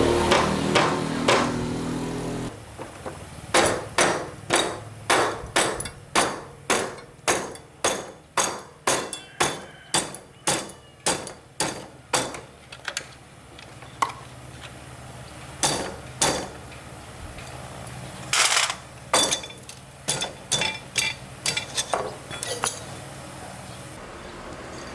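Hammer blows on metal, a steady run of about two strikes a second, then a scattered handful of further strikes. At the start a motorbike engine is running, and it stops suddenly about two seconds in.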